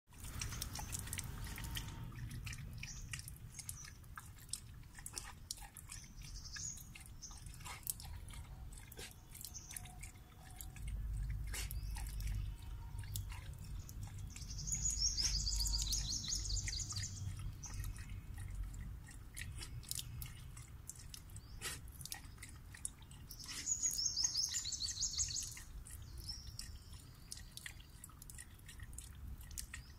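A dog lapping water at a tap: a long run of small wet clicks. A bird chirps in quick high trills twice, once about halfway through and again later; these are the loudest sounds.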